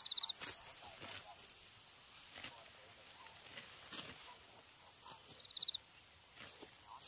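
Dry rice stalks crunching and rustling as they are cut by hand with sickles, in scattered short strokes. A short, high, rapid-pulsed chirp sounds at the start and again about five and a half seconds in.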